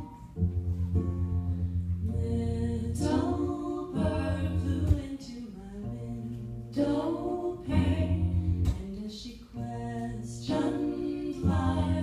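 A song: singing over acoustic guitar.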